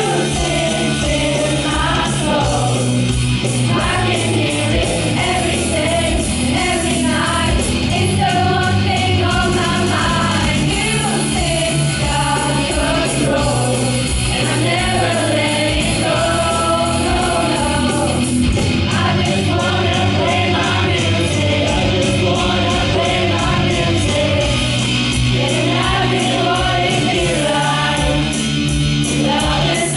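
A group of voices singing a song together over a band accompaniment with a steady beat.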